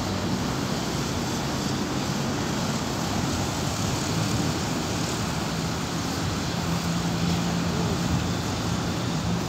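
Boeing 777-200ER on final approach, its jet engines a distant steady rumble mixed with street traffic noise, with a low hum that grows stronger about six seconds in.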